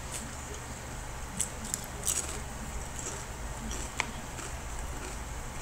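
A few faint, crisp crackles from honey butter potato chips and their bag as they are eaten, over a low steady hum.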